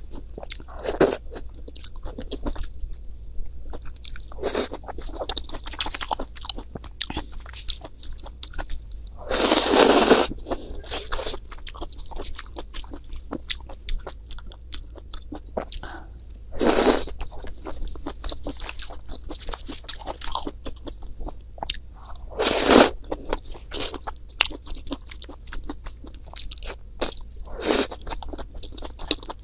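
A person eating close to the microphone: steady chewing with small crackly, wet mouth clicks, and now and then a louder, crunchier bite, four times in all.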